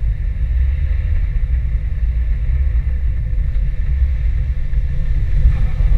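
Off-road vehicle driving slowly along a muddy trail, its engine and drivetrain giving a steady, loud low rumble.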